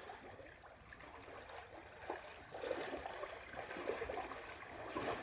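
Water in an above-ground pool sloshing and lapping softly as a child wades through it.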